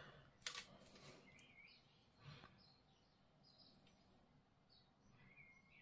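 Near silence: room tone, with a faint click about half a second in as the plastic sprues are handled, and a few faint high chirps.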